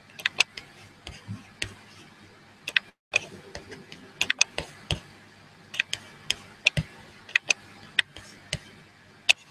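Irregular sharp clicks, a few a second, of someone working a computer's mouse and keyboard, over a faint steady hum. The sound cuts out completely for a moment about three seconds in.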